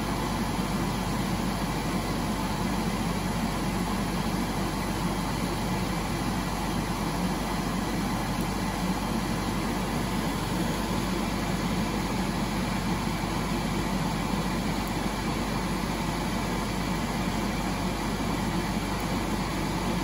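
A fan running steadily, giving a constant even whir with a faint low hum.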